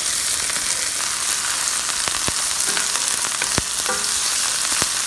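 Chopped garlic and green onions sizzling in hot oil in an enamelled cast-iron braiser, stirred with a wooden spatula. A few sharp clicks of the spatula against the pan sound over the steady sizzle.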